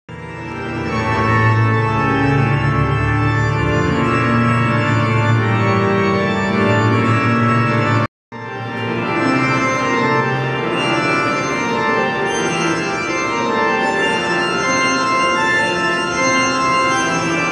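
Music of sustained, layered held chords, cutting out for a split second about eight seconds in.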